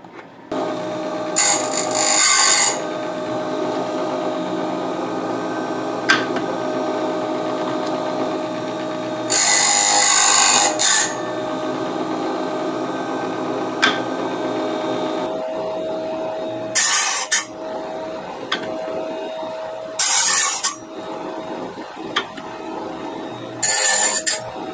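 A Harbor Freight Chicago Electric blade sharpener's motor starts about half a second in and runs with a steady hum. Five times its abrasive wheel is brought down onto a bandsaw blade's steel teeth, each a loud, short grinding of about a second, with a couple of sharp clicks between passes.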